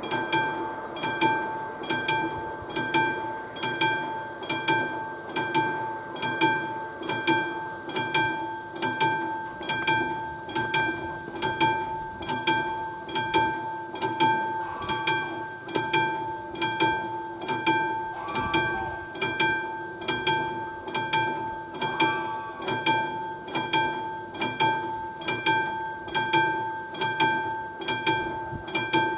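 Level-crossing warning bell of the classic type, struck by a hammer about once a second and ringing on between strokes. It starts suddenly as the crossing's warning activates: a train is approaching.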